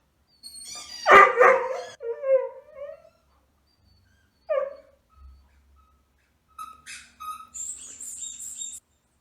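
A husky's vocal sounds: a loud, pitched bark-like yowl with falling pitch about a second in and a short call about four and a half seconds in. A different sound with a steady high tone follows near the end.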